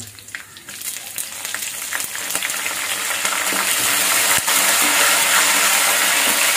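Curry leaves and green chillies sizzling in hot oil in a clay pot. The sizzle swells about a second in and stays loud while a wooden spatula stirs, with a single sharp click about four and a half seconds in.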